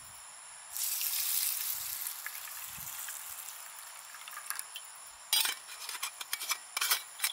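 Food sizzling in a hot pan: a hiss starts suddenly about a second in and slowly fades, then sharp pops and crackles come near the end.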